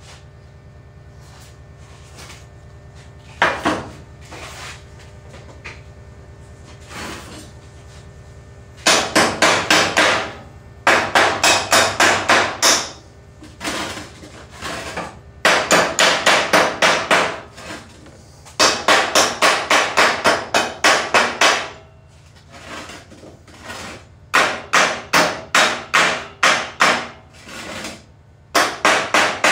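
Chipping hammer rapping on steel stick welds to chip off the slag, in quick runs of several strikes a second with short pauses between runs.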